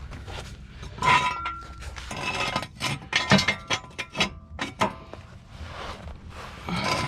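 Metal objects clinking and clanking, with short ringing tones after some strikes, and a quick run of knocks about three to five seconds in, as metal car-jacking gear and tools are handled and set down.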